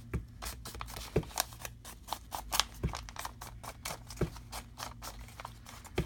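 Lined writing paper being handled and shifted on a cutting mat: scattered rustling and crinkling with a few sharper taps.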